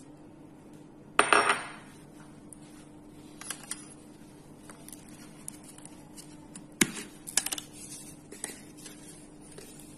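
Kitchen dishware clattering on a stone countertop: one loud clatter with a metallic ring about a second in, then a sharp knock and a quick run of clinks about two-thirds of the way through, with small clicks between, over a faint steady hum.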